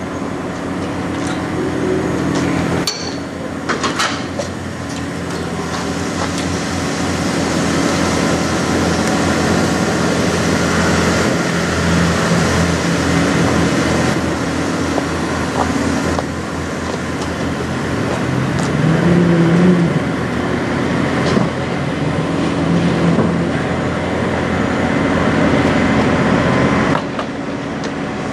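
Semi-truck diesel engine idling, a steady low running sound, with a sharp click about three seconds in.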